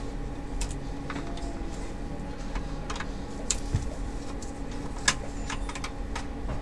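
Scattered small clicks and taps as a screwdriver and gloved fingers work on the plastic and metal parts inside an opened NEC NP60 projector, the sharpest about five seconds in, over a steady low hum.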